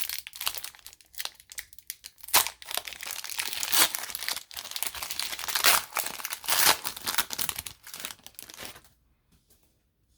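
Crinkling and rustling of trading-card packaging, the plastic and foil of a card pack and sleeves being handled, in quick irregular crackles that stop about nine seconds in.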